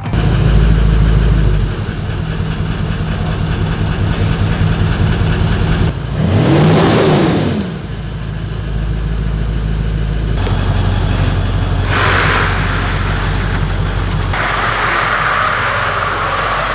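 Car engine idling through a newly fitted Manta single-outlet aftermarket exhaust, revved once about six seconds in, its pitch rising and falling back within two seconds. The tone and level change abruptly several times in the second half.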